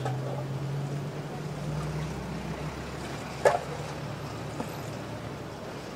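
A steady low motor hum, with one short knock about three and a half seconds in.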